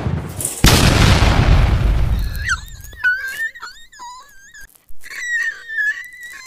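A loud boom less than a second in, fading out over about two seconds. Then a high, thin whine that wobbles and bends up and down in pitch in broken stretches.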